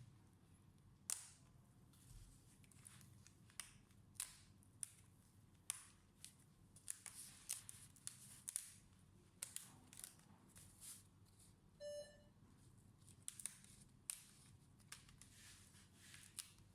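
Scattered small clicks and taps from tools and small parts being handled on a laptop repair bench, with one short electronic beep about twelve seconds in.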